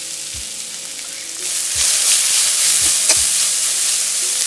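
Chopped banana flower sizzling in hot oil as it goes into a kadai with fried onions, chillies and curry leaves. The sizzle grows louder about a second and a half in, and a spoon stirring the mix knocks against the pan a few times.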